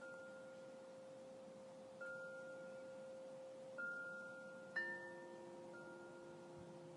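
Soft ambient background music: gentle chime-like notes over a steady held tone. A new note rings out every second or two, and a fuller chord sounds about five seconds in.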